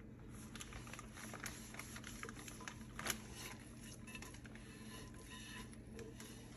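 Faint cleaning noises from a microwave turntable tray being cleaned: scattered small clicks and light rubbing, with one sharper click about three seconds in.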